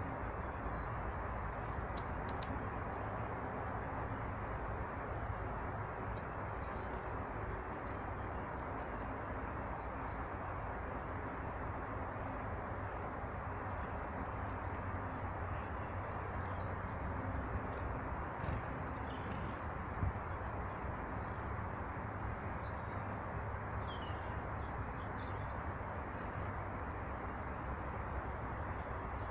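Small birds chirping and calling over a steady low rushing background: short high calls throughout, with quick twittering trills of repeated notes that grow busier in the second half.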